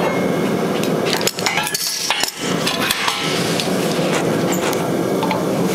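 A few sharp clinks and knocks of steel tools and stock being handled on a steel table, over a steady mechanical hum from shop equipment.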